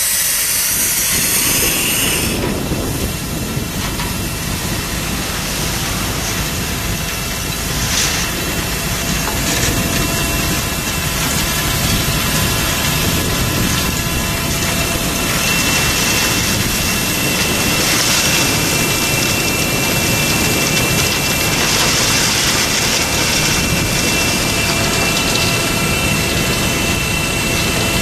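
Heavy machinery running steadily as a Superior 48-inch Razertail truck unloader takes asphalt millings dumped from a bottom-dump semi-trailer: engine and conveyor noise with a few steady tones running through it. A burst of hiss fills the first two seconds.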